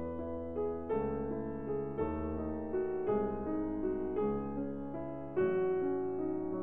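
Background piano music: a string of held notes and chords changing about once or twice a second.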